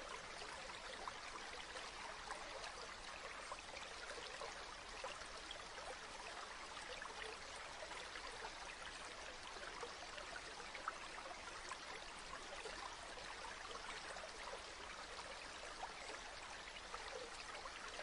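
A faint, steady wash of running water, like a small stream, with no birdsong.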